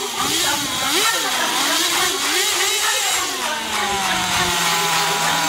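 Small nitro RC car engines running at high revs, their pitch swinging up and down; about three seconds in, one engine's pitch drops and settles into a steady idle.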